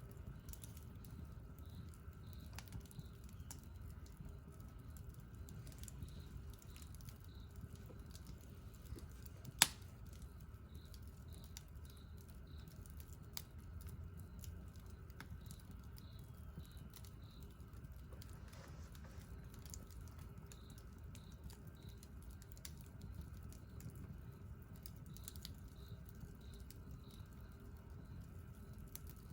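Wood campfire crackling: scattered small snaps and ticks over a low steady rumble of the burning fire, with one sharp loud pop about ten seconds in.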